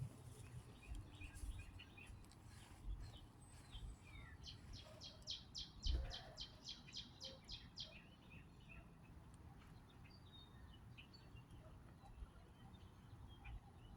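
Faint outdoor birdsong: scattered short chirps, and one bird's run of about a dozen quick repeated high notes, about four a second, a few seconds in. A low rumble lies underneath, with a single thump near the middle.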